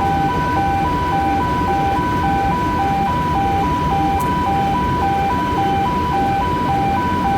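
Two-tone alarm alternating between a higher and a lower note about twice a second, over a steady low machinery rumble: the oily water separator's 15 ppm alarm sounding in a test, the sign that oil content above 15 ppm is being signalled.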